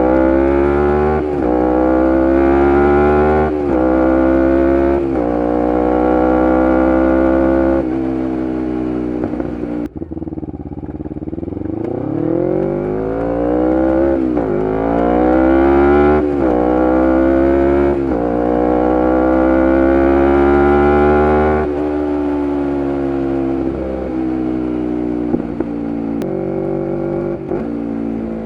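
Kawasaki Ninja 250R parallel-twin engine through a full Graves race exhaust, accelerating hard. The pitch rises and drops sharply at each quick upshift. About ten seconds in the sound falls away briefly, then climbs through the gears again, holds steady for a few seconds and eases off with further shifts near the end.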